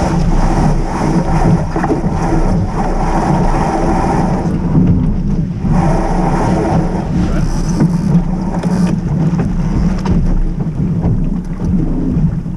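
Wind buffeting the microphone of a deck-mounted camera as a sailboat sails along, with water rushing past the hull. The sound is a loud, continuous low rumble with no breaks.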